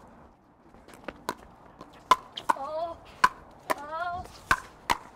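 Pickleball paddles striking a plastic pickleball back and forth in a rally: a string of sharp pops, about one a second, some coming in quick pairs.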